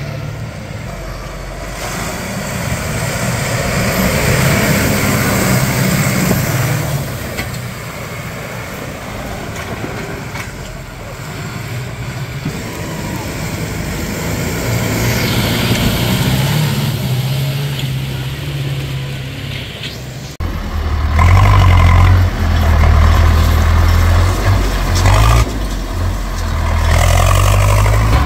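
Diesel farm tractor engines working hard through a mud pit, their pitch rising and falling with the throttle. About 20 seconds in, the sound cuts abruptly to a louder, closer tractor engine.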